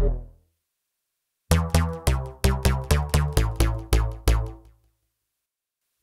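Roland JD-800 synthesizer (Roland Cloud software version) playing a preset demo: the previous note dies away, then after a short gap a quick sequenced riff of about eleven punchy bass-heavy notes plays and rings out.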